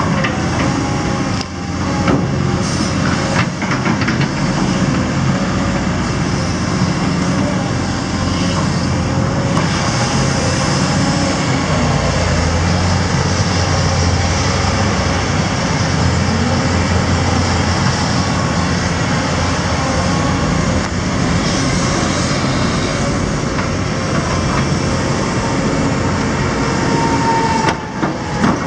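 Caterpillar 329 hydraulic excavator's diesel engine running steadily under load while digging, with a few knocks and clatters of the steel bucket in stony ground about a second or two in and again near the end.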